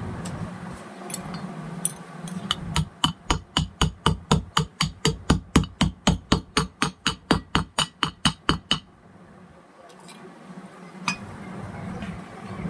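A hammer tapping on metal in a quick, even run of about four to five blows a second for some six seconds, then stopping suddenly, with a few lighter clicks before and after. This is typical of driving a bearing on or off a ceiling fan motor's shaft during a bearing replacement.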